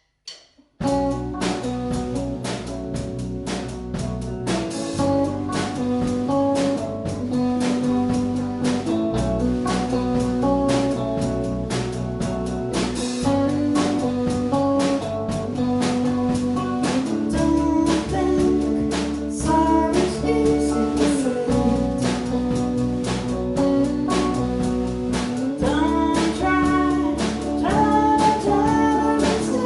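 Band music with a drum kit keeping a steady beat, a bass line and guitar, starting about a second in.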